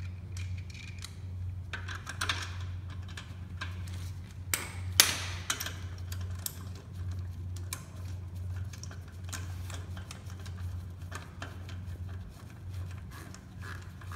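Locking wheel nuts being fitted by hand on a car wheel: scattered small metallic clicks and rattles of the nut and key against the wheel, one sharper click about five seconds in, over a steady low hum.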